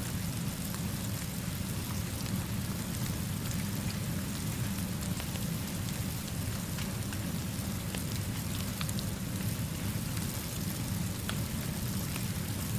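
Steady rainfall, an even hiss with a low steady rumble beneath it and scattered faint ticks throughout.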